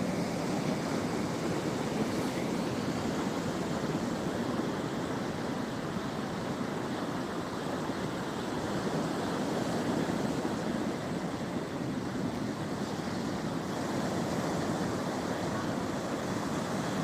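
Black Sea surf washing onto the shore, a steady rush of water noise.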